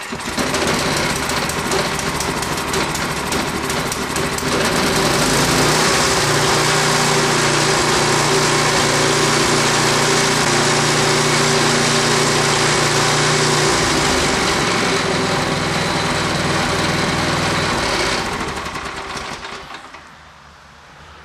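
Ariens 1028 snowblower's 10 HP engine starting at once without priming, then running steadily. It picks up speed about four seconds in, then winds down and stops near the end. It sputters a little, which the owner puts down to a carburettor that probably needs cleaning.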